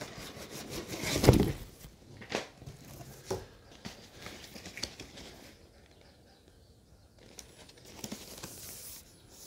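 Cardboard packaging being handled: a shipping carton and a printed product box moved and turned in the hands, with rustling and scraping. The loudest rustle comes about a second in, followed by a couple of sharp knocks, then quieter handling.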